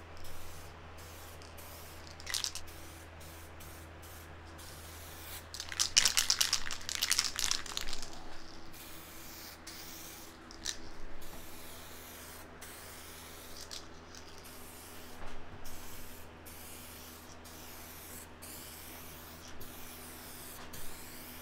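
Aerosol can of SprayMax 2K clear coat spraying in repeated short hissing bursts, with one longer, louder pass lasting about two and a half seconds around six seconds in. A steady low hum runs underneath.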